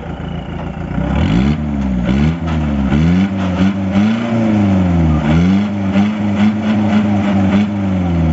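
Modified Mahindra jeep's engine revved hard again and again, the pitch rising and falling about once a second, then held high for a few seconds at a time before dropping near the end. The jeep is stuck, leaning on its side on a steep dirt slope, with its wheels spinning in the loose soil.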